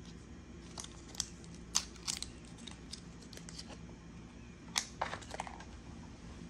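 An Apple Watch Ultra's protective wrap being peeled off and the titanium case handled: scattered light crinkles and sharp little clicks, loudest just under two seconds and again near five seconds in.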